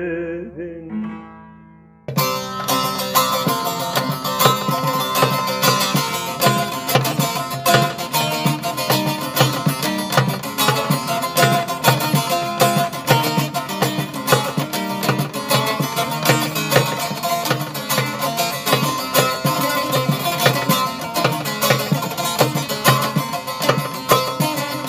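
Background music: the singing of a Kurdish song fades away in the first two seconds, then a busy instrumental passage on plucked strings starts abruptly and runs on without vocals.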